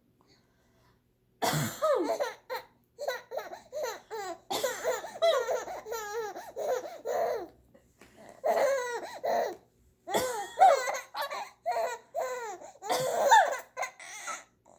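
A baby laughing hard in repeated bouts of high giggles and belly laughs, starting about a second and a half in. The laughter is set off by an adult's fake coughs.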